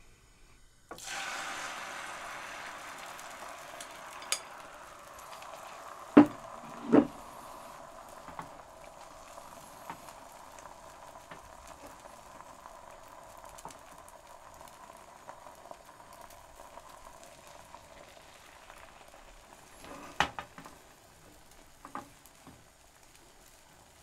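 Egg frying in hot oil in a pan on high heat: a sizzle that starts suddenly about a second in and slowly fades as the egg sets, with a few sharp knocks against the pan partway through and again near the end.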